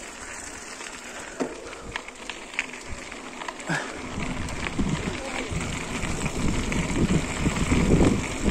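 Forever FM075 mountain bike rolling over a rocky gravel trail, with tyres crunching and scattered clicks and rattles. From about halfway, wind buffets the chest-mounted phone's microphone, growing louder as the bike picks up speed.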